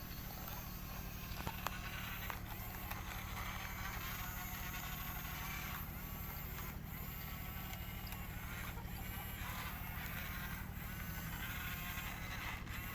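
Heavy diesel engine of the earthmoving equipment running steadily at a low, even speed, with higher-pitched chirps over it.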